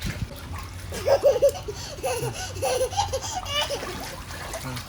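A young child laughing in several short runs of giggles, with some water splashing in a small pool.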